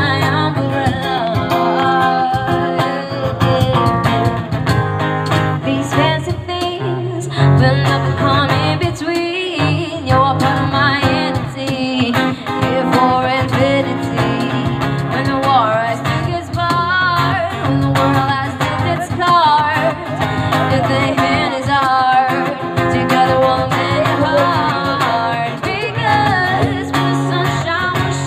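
Live acoustic music: a singer accompanied by acoustic guitar, amplified through loudspeakers.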